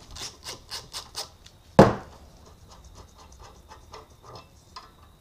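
Ratchet clicking in quick, even strokes, about five a second, as the 12 mm shock mounting bolt is loosened. A single sharp knock comes a little under two seconds in, followed by lighter, quicker ticking.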